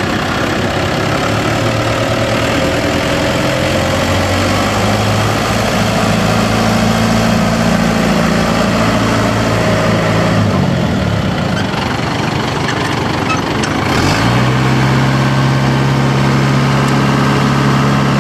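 New Holland TT75A tractor's diesel engine running, its speed stepping up about four seconds in, dropping back about ten seconds in, and picking up again a few seconds later to run steadily.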